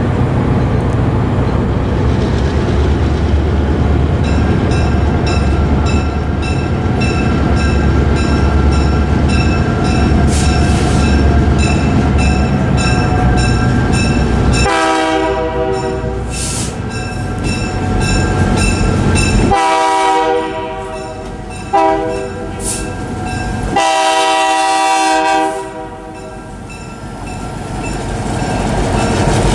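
Grade-crossing warning bell ringing at a steady beat. Over it, the horn of the lead GP10 diesel locomotive sounds the grade-crossing signal: two long blasts, a short one, then a long one. The locomotives' diesel engines grow louder near the end as they reach the crossing.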